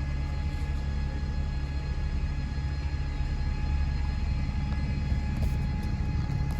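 Steady low vehicle engine rumble with a faint steady whine over it, unchanging throughout.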